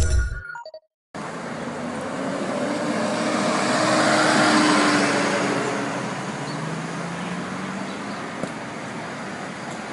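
Tail of a short electronic logo jingle, then a brief silence. After that, street traffic: a city bus passes close by, its engine and road noise swelling to a peak about four to five seconds in and fading away. Steady traffic noise goes on afterwards.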